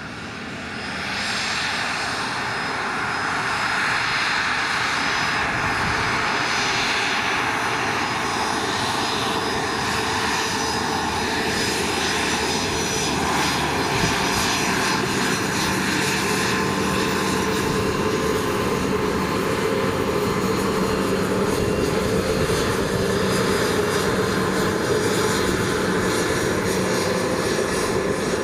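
Twin turbofan engines of a Bombardier Challenger 600-series business jet running, a steady whine over a rumble. It grows louder about a second in and then holds steady.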